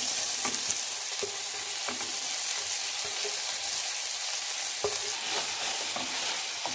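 Sliced onions sizzling steadily in hot oil in a pan as they are stirred with a wooden spatula, with a few light knocks against the pan.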